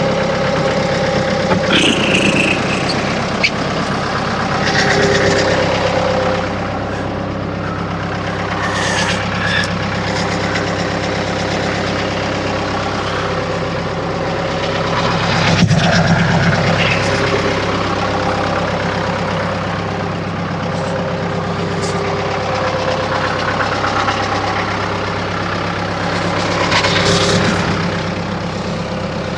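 Mahindra tractor's diesel engine running steadily while a heavy oak log is loaded, rising in level a few times, with one sharp knock about halfway through.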